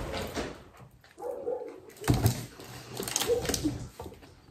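A small dog whining twice in short pitched whimpers, begging for food, over chewing and the crackle of a paper fast-food bag. A thump about two seconds in is the loudest sound.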